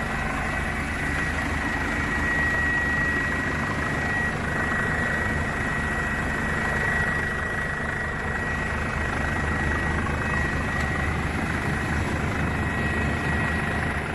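Helicopter running steadily, its turbine and rotor noise constant, with a steady high whine.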